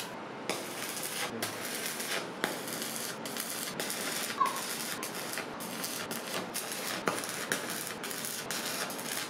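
Stick (arc) welding: the electrode arc crackles and sizzles steadily as a steel rod handle is welded onto a steel tank, with short breaks where the arc stops and restarts.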